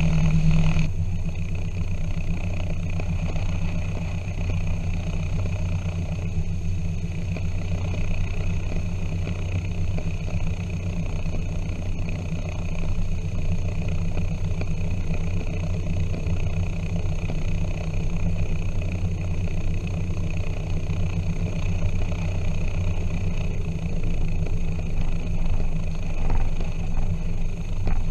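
Twin piston engines and propellers of a Piper PA-23 Apache running at low taxi power, heard from inside the cabin as a steady low drone. It eases slightly about a second in and grows louder and more uneven near the end.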